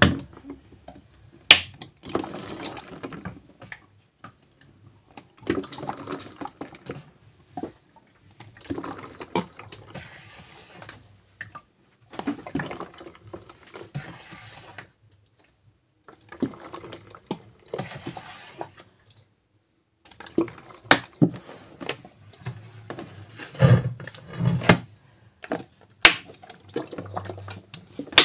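Thick homemade liquid laundry soap poured into a plastic jug, splashing as it fills. It comes in about six pours of a few seconds each with short pauses between, and a few sharp knocks.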